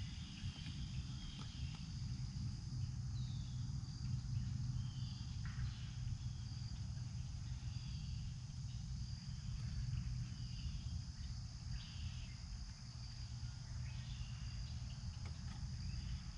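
Insect chorus: a steady high trilling drone, with scattered short chirps, over a low steady rumble.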